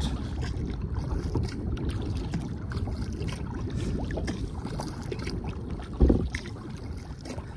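Kayak paddle strokes dipping and splashing in river water, with wind buffeting the microphone and a louder thump about six seconds in.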